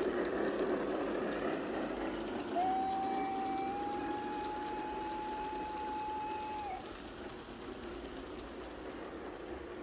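Garden-scale model freight train rolling past on its track, its wheels giving a steady rolling rumble. About two and a half seconds in, a long steady whistle starts and holds for about four seconds, stepping slightly higher in pitch partway through, before cutting off.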